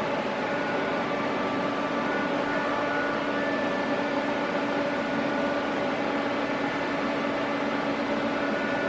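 AC TIG welding arc on aluminium, a steady electrical buzz with a hiss, holding even throughout.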